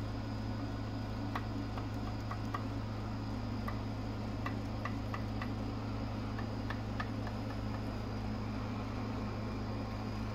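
Main bearing caps in a Toyota 2JZ engine block, rocked by hand, clicking back and forth in irregular small clusters over a steady low hum. The clicking is the sign that the caps are loose in their registers, a fault of the engine build.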